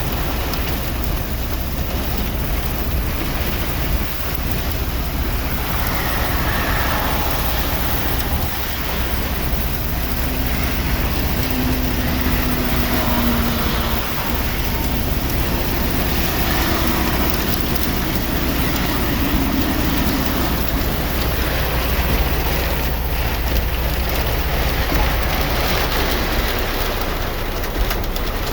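Heavy rain and wind in a thunderstorm, a steady rushing noise with a constant low rumble underneath.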